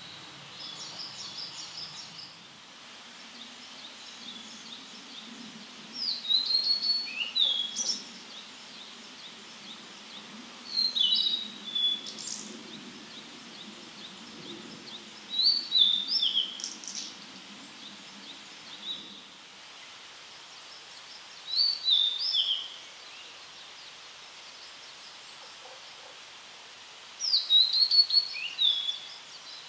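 Male blue-and-white flycatcher singing: five phrases of quick, clear whistled notes that swoop up and down, each a second or two long, with pauses of several seconds between them.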